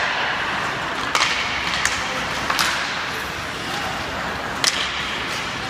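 Ice hockey play: skate blades scraping the ice under a steady hiss, with four sharp clacks of sticks on the puck, and players' voices calling out.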